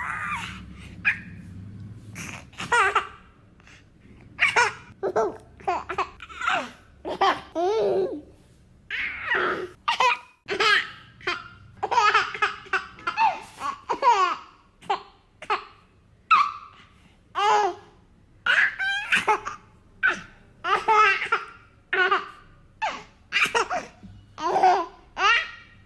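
Baby boy laughing in repeated short bursts of giggles and belly laughs, with breaths between them.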